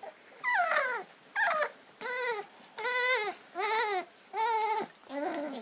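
Young puppy whining: seven high whines a little under a second apart, the first two falling in pitch, the rest rising and then falling.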